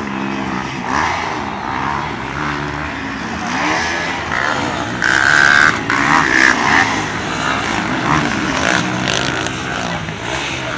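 Motocross dirt bike engines revving hard, their pitch rising and falling again and again as the riders accelerate and shift. The sound is loudest around the middle.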